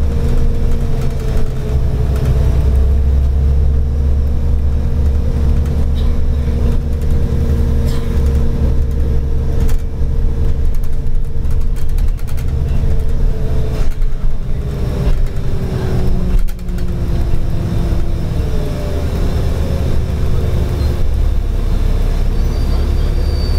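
Cabin of a New Flyer D40LF diesel city bus under way: a steady low engine rumble with a driveline whine that falls in pitch about two-thirds of the way through and then rises again. Scattered rattles and knocks from the body and fittings.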